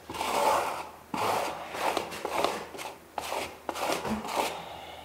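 Trowel scraping over Kerdi waterproofing membrane bedded in wet thinset, in a run of short strokes about two a second, smoothing the membrane flat and working excess mortar out.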